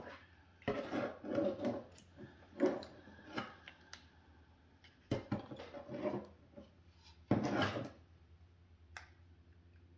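Plastic and metal parts of a Lexus LS460 side-mirror motor assembly clattering and rubbing as it is turned over in the hands, in irregular bursts with a few sharp clicks and knocks, the loudest a little past the middle.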